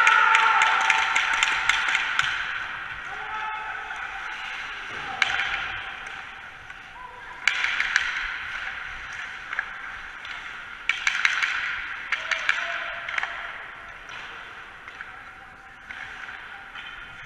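Ice hockey drill: pucks clacking sharply off sticks and boards again and again, with skate blades scraping the ice in several loud stretches. Distant voices echo through the rink.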